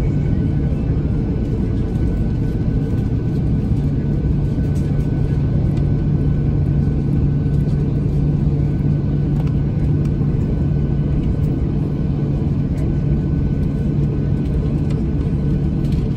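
Steady cabin noise inside a Boeing 737-800 taxiing, its CFM56-7B engines running at taxi power: a constant low hum with rumble, and a faint steady higher tone above it.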